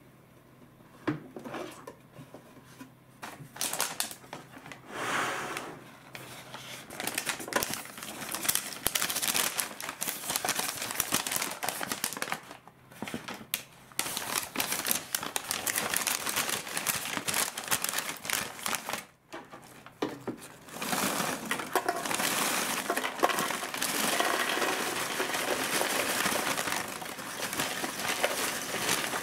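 A brown paper bag crinkling as it is handled and tipped, and popcorn pouring and rattling into a hard plastic bucket in a dense run of light clatter, with a short pause about two-thirds of the way through. A few light plastic clicks come first, before the pouring starts.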